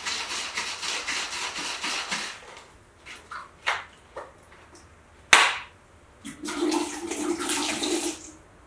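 Sanitiser solution sloshing inside a plastic PET beer bottle as it is shaken hard for about two seconds. A few clicks and one sharp knock follow a little past halfway. Near the end the solution glugs out of the bottle for about two seconds.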